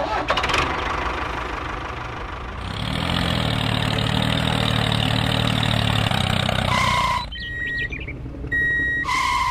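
Tractor engine running with a knocking beat, growing louder and deeper about three seconds in, then cutting off about seven seconds in. A few short, steady electronic beeps follow.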